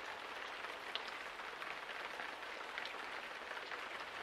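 Steady rain-like patter: an even hiss dotted with many small crackles.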